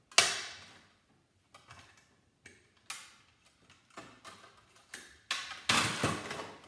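Sheet-metal parts of a dehumidifier clanking and rattling as they are pulled and worked apart by hand: a sharp clank just after the start, scattered clicks and taps, then a louder run of clattering near the end.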